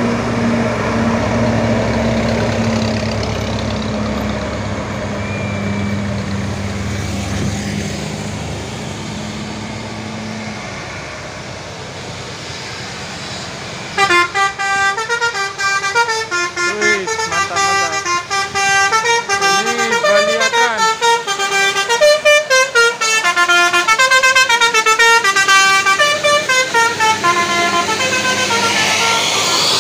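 A tour bus's diesel engine running steadily and fading away over the first ten seconds or so. About fourteen seconds in, a Basuri multi-tone musical bus horn starts up loudly and plays a quick melody of stepped notes, several sounding together.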